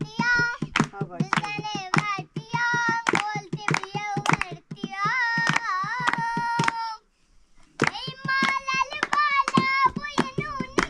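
A child singing a melody in a high voice, with held, bending notes and sharp claps in rhythm; the singing breaks off for under a second about seven seconds in, then resumes.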